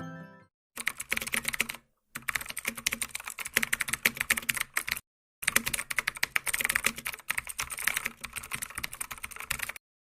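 Rapid clicking typing on a computer keyboard, in three stretches broken by abrupt cuts to dead silence. A fading tail of mallet-percussion music ends just before it starts.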